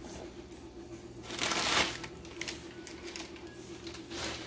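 Crumpled brown kraft packing paper rustling and crinkling as it is pulled out of a cardboard box, loudest in one burst about a second and a half in, with a few shorter crinkles after.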